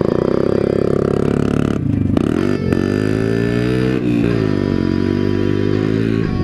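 Yamaha Badger 80 ATV's small four-stroke single-cylinder engine revving as it is ridden. The pitch rises and falls several times, dipping sharply about two seconds in.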